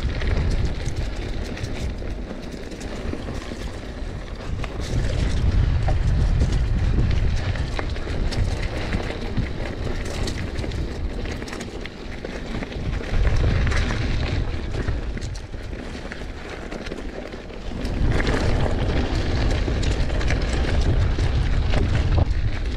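Wind buffeting an action camera's microphone on a mountain bike riding a dirt singletrack, along with tyre noise and the rattle and clicks of the bike over the ground. The low wind rumble swells and drops back in several stretches.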